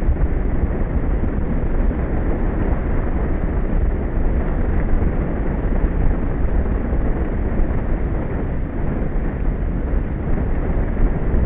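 Wind buffeting an outdoor microphone: a steady, rumbling hiss that is heaviest in the deep low end.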